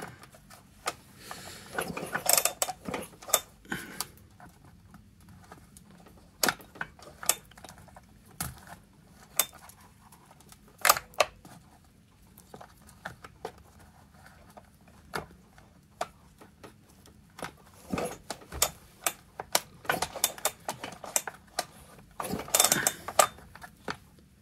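Scattered mechanical clicks and rattles as a Husqvarna 365 Special chainsaw is pulled over slowly by hand with a piece of solder in the spark plug hole, the piston flattening the solder to gauge squish clearance. The clicks come in two busier spells, about two seconds in and again near the end, mixed with handling of the saw and the solder.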